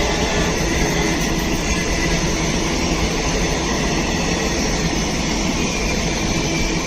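Passenger express train rolling past at speed: a steady rush of wheel and rail noise from the coaches.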